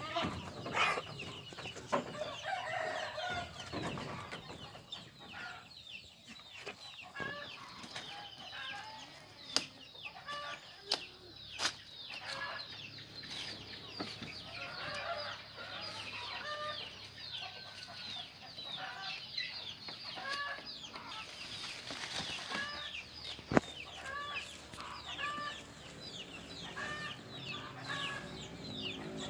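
Chickens clucking, with many short high peeping calls repeating throughout, broken by a few sharp short sounds, the loudest about four-fifths of the way in.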